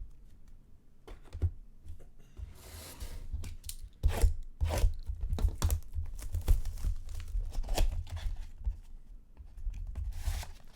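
A trading-card pack wrapper being torn open and crinkled, with cards being handled. There is a drawn-out tear about two and a half seconds in, then a busy run of sharp rips and rustles.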